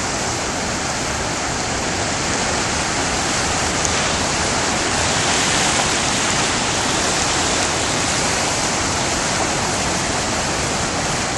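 Flood-swollen river rushing in standing waves under a road bridge: a loud, steady wash of fast-moving water.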